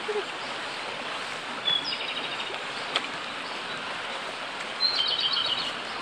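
Japanese robin singing: two song phrases, each a high opening note running into a fast rattling trill, about two seconds in and again near the end.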